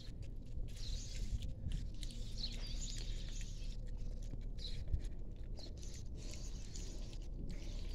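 Outdoor background: a steady low rumble with scattered faint chirps of small birds.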